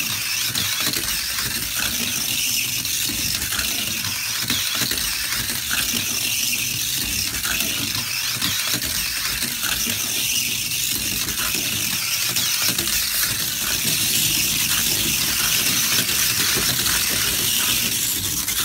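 Small battery-powered Wave Racers toy cars running around a plastic race track: a steady high whir of the tiny motors with the rattle of wheels on the plastic track, and a few faint clicks.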